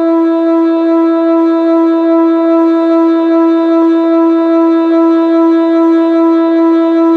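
Whelen WPS-2906 electronic outdoor warning siren sounding a steady, unwavering tone. It swells and fades gently in loudness in a regular rhythm as its rotating speaker array sweeps past.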